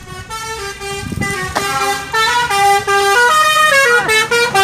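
Basuri multi-tone 'telolet' bus horn playing a tune of held notes that step up and down in pitch, each lasting a fraction of a second. It gets louder about one and a half seconds in.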